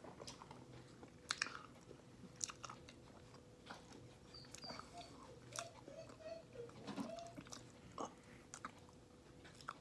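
Faint sounds of a person eating ice cream: quiet chewing and mouth noises with scattered small clicks.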